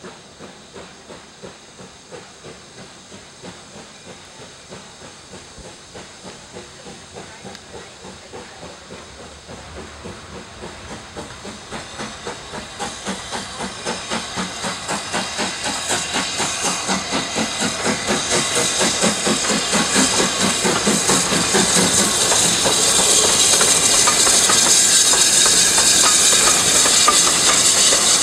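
BR Standard Class 7 two-cylinder Pacific steam locomotive No. 70000 Britannia working a train, its rhythmic exhaust beats growing steadily louder as it approaches. The sound is loudest as it passes close near the end.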